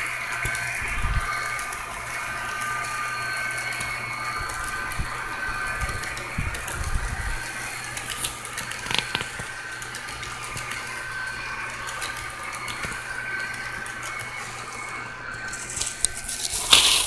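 Model train freight cars rolling past on the track: a steady whirring rumble with a low hum and scattered clicks of wheels over rail joints, and one sharp, louder noise near the end.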